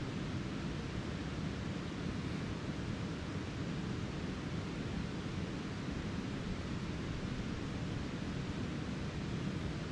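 Steady rush of a flowing river, an even hiss with no breaks.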